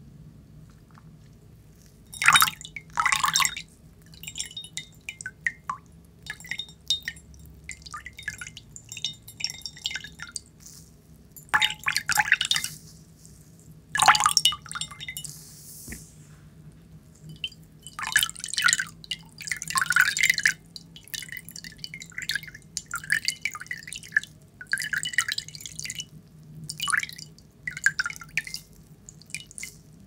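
Close-miked water dripping and splashing in irregular bursts, with wet squishing and rubbing as a soaked object is squeezed and wiped against a china saucer and a ceramic bowl.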